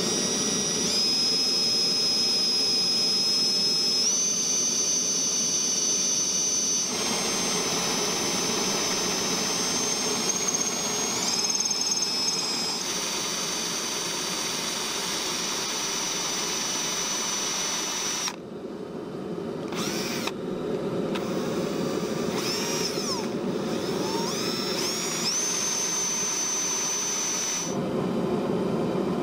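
Electric drill running with a steady high whine as its bit cuts into a copper-nickel coin mokume gane billet clamped in a vise, the pitch shifting as the bit bites. In the second half the motor stops and spins up again several times.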